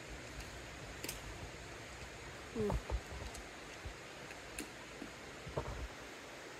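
Faint walking and handling noise: a few low thumps and light clicks over quiet outdoor background, with a brief low sound sliding down in pitch about two and a half seconds in.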